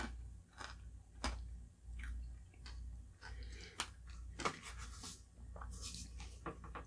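Close-up chewing of a mouthful of shaved-ice dessert, then a metal spoon scraping and digging through shaved ice in a glass bowl, with a few sharp clicks.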